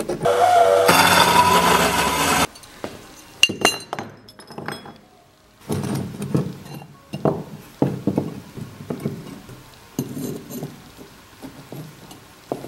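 Cut pieces of steel angle and square tube clinking and knocking against each other and on a wooden workbench as they are set down and fitted together by hand. It opens with about two seconds of loud, harsh noise that cuts off suddenly.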